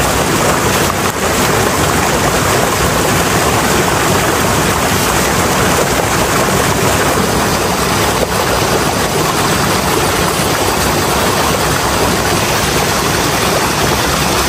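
Loud, steady rush of a fast-flowing rocky mountain stream.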